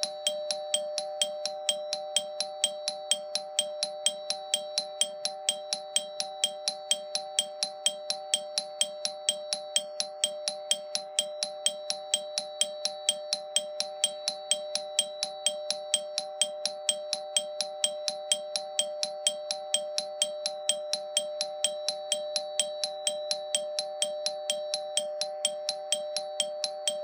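Railway ATS warning bell ringing continuously, about three strikes a second, each strike ringing at the same few fixed pitches.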